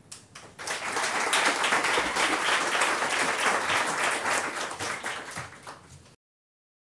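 Audience applauding, swelling within the first second, then tapering off and cutting off abruptly about six seconds in.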